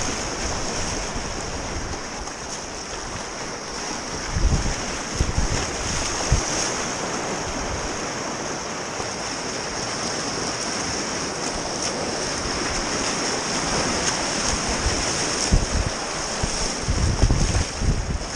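Whitewater rushing and churning around a kayak as it runs a river rapid. Gusts of wind buffet the microphone with low rumbles about four seconds in and again near the end.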